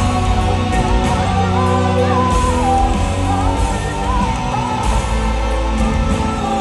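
Loud rock music with electric guitar and a singing voice.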